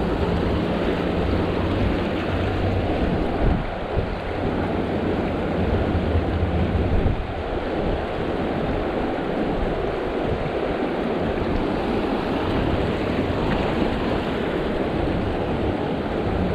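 Mountain creek water rushing over rocks in shallow riffles, a steady noise, with wind rumbling on the microphone, heavier in the first few seconds.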